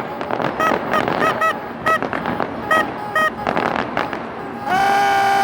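Horns tooting in many short blasts over crowd noise, then one long steady horn blast starting near the end.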